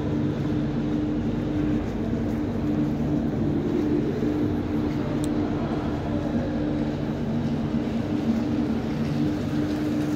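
Steady mechanical drone and rumble in a tunnel: a few low steady tones over a noisy roar, with one short click about halfway through.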